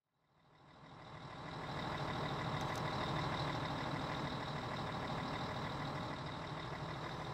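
A Mack fire truck's diesel engine idling steadily, fading in over the first two seconds.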